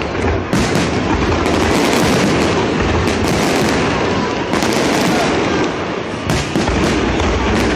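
Fireworks display: many aerial shells bursting in rapid succession, their bangs and crackles running together into one loud, continuous barrage.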